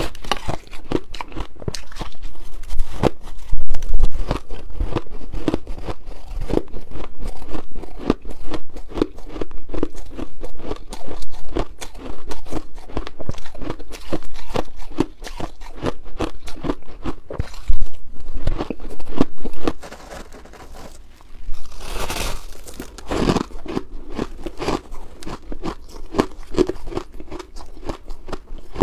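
Shaved ice crunching: a metal spoon scoops through a bowl of finely shaved ice and the ice is bitten and chewed, making a dense, irregular run of crunches. There is a brief quieter pause about two-thirds of the way through.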